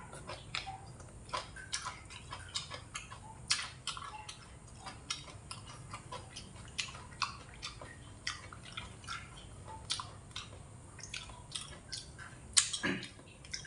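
Eating sounds: chewing and smacking with irregular soft mouth clicks, several a second, mixed with a spoon and chopsticks tapping against plates and metal bowls; one sharper click near the end.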